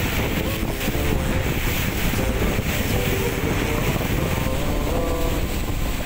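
Motorboat underway on open sea: steady rush of wind buffeting the microphone over engine and water noise.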